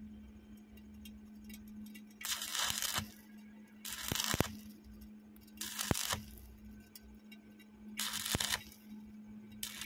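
Stick-welding arc struck in short crackling bursts about every one and a half to two seconds, each lasting about half a second. The electrode is being pulsed on and off to build up a weld over a hole in steel tubing. A steady low hum runs underneath.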